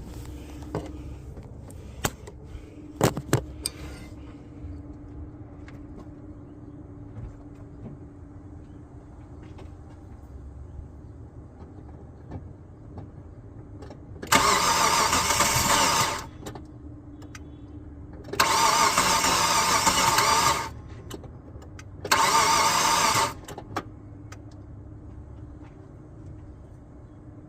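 2006 Hyundai Tucson GLS being cranked three times by its starter, each attempt lasting one to two seconds, with a loud noise during cranking and the engine not starting. A few sharp clicks come before the first attempt.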